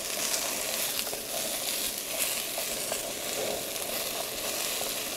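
Diced potatoes frying in hot oil in a Trangia camping-stove pan, a steady sizzle with faint small crackles.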